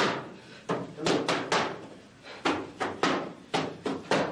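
Boxing gloves smacking leather focus mitts in quick combinations: about ten sharp slaps in clusters of two or three, with a short pause about two seconds in.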